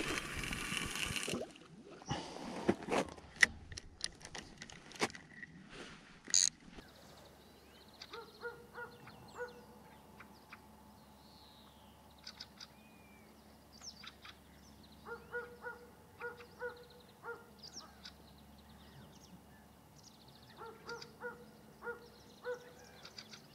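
A fishing rod is cast from a spinning reel, with a brief rush of line and then a few handling clicks. After that, birds call in short repeated groups of notes, with fainter higher chirps from small birds.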